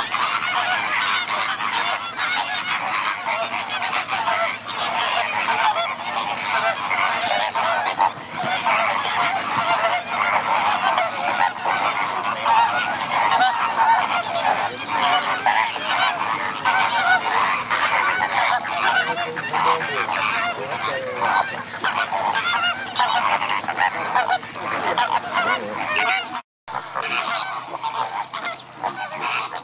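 A large flock of greater flamingos calling together in a dense, continuous goose-like honking and gabbling chorus. The chorus breaks off suddenly near the end, and a quieter sound follows.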